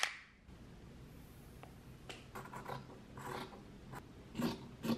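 Fabric scissors cutting through linen cloth: a run of short, scratchy snips starting about two seconds in, loudest near the end.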